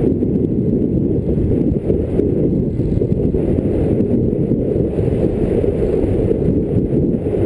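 1957 Citroën DS19 being driven, heard from a microphone on its bonnet: a loud, steady low rumble of wind buffeting and road noise.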